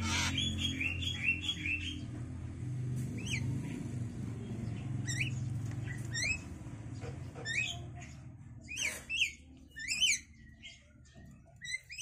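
Javan myna nestlings chirping in a quick run as a parent carries food into the nest box, then sharp falling chirps now and then. A low steady hum sits underneath and fades out by about eight seconds in.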